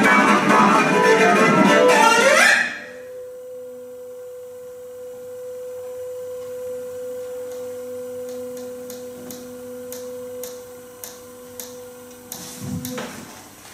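Cello and organetto (portative organ) play a dense, loud passage that breaks off suddenly about two and a half seconds in. The organetto then holds a single pure, steady pipe tone, with a fainter lower tone coming and going beneath it. A string of light clicks sounds over the held note, which stops shortly before the end.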